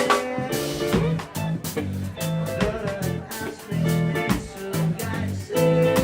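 Live band music with guitar over a steady beat.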